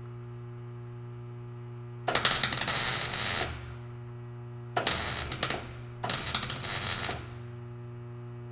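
Wire-feed (MIG) welder stitch-welding a steel patch panel: three crackling, sizzling bursts of arc, about a second and a half, under a second, and just over a second long, with a steady hum between them.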